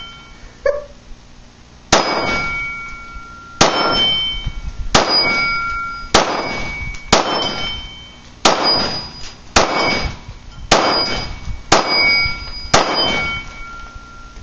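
A Glock 19 Gen 4 pistol firing 9mm rounds, about ten shots at a steady pace of roughly one a second. Nearly every shot is followed by the ringing clang of a steel plate target being hit.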